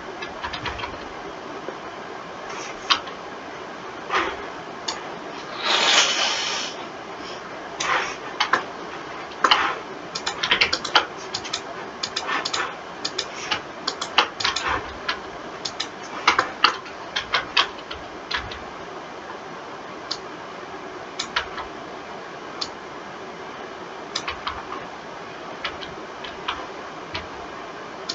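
Irregular clicks of a computer mouse and keyboard, some in quick runs, over a steady hiss, with a denser rattle of clicks about six seconds in.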